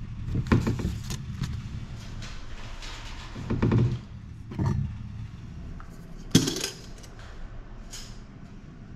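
Kitchen clatter as cabinet doors are opened and dishes are handled at the counter: a string of knocks and clinks, the sharpest about six and a half seconds in, over a steady low hum.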